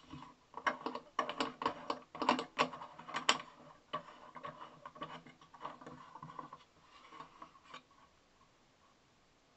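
Clicks and knocks from handling a metal fret slotting miter box as its clamp knobs are turned. The clicks come quickly for the first few seconds, thin out, and stop about eight seconds in.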